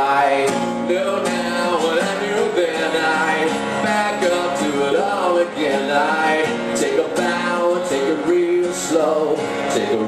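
Live acoustic music: a cutaway acoustic guitar strummed while a man sings over it.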